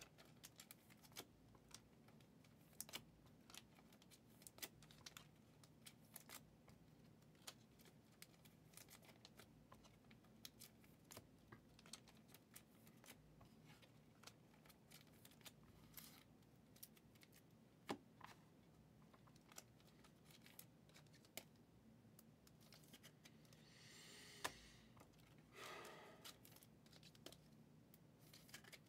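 Quiet handling of trading cards: a string of soft clicks and snaps as cards are flipped and slid over one another, with a short rustle near the end.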